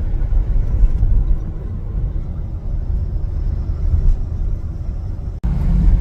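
Steady low rumble of a car's engine and tyre road noise heard from inside the cabin while driving on a motorway, with a brief break about five and a half seconds in.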